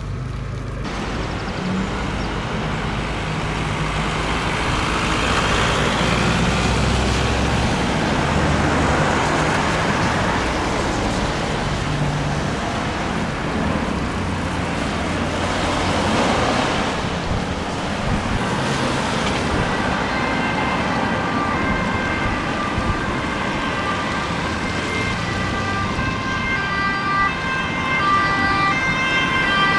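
Road traffic, cars driving past in swells. From about twenty seconds in, a police convoy's two-tone siren joins in, alternating between two pitches and growing louder as it approaches.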